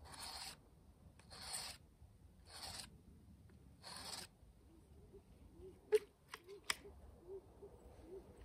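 Sharpening card rasped along the bevelled cutting edge of a bypass lopper blade: four even strokes about one every 1.3 seconds. The strokes stop about halfway, followed by a few sharp clicks as the loppers are handled.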